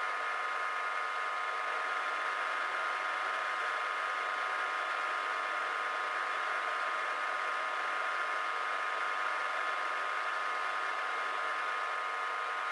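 Warco Major GH geared-head milling machine running steadily as a twist drill cuts down through a clamped metal plate, throwing off curled chips. It makes a steady whine with no change in pitch.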